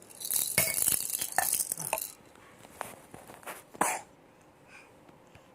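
A baby boy coughing in several short bursts, with a hissing rustle over the first two seconds.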